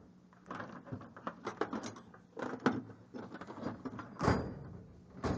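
Steel tool chest drawers being slid shut and open, with tools knocking and clinking inside them, and one louder drawer slide about four seconds in.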